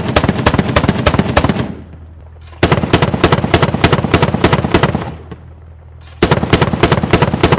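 Machine-gun fire in long bursts of rapid shots. One burst ends about two seconds in, the next runs from about three to five seconds, and a third begins near the end, with a low steady hum beneath.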